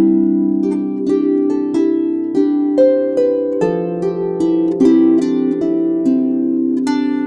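Background music: a gently plucked harp-like melody, notes ringing over one another at an even pace.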